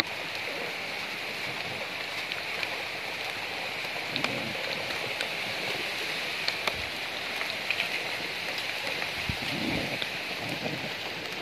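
Steady rain falling, an even hiss sprinkled with the ticks of single drops, with a couple of soft low sounds about four and nine seconds in.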